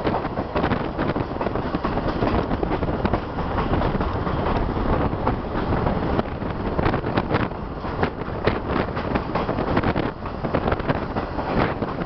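Passenger train rolling along, heard from an open car window: a steady rumble with wind buffeting the microphone and irregular clicks and rattles from the wheels and cars.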